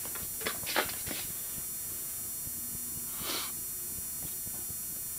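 Quiet room tone with a steady hiss. There are a few soft breathy sounds in the first second and one short breath at about three seconds.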